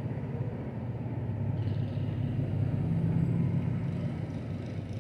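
Steady low rumble of city background noise, swelling slightly about two to four seconds in.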